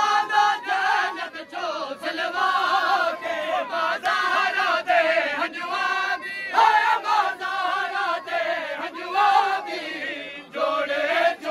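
Crowd of male mourners chanting loudly together in a Muharram mourning chant, many voices at once with no break.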